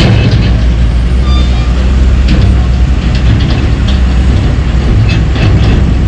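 Heavy diesel trucks running in slow traffic: a steady, loud, low engine rumble.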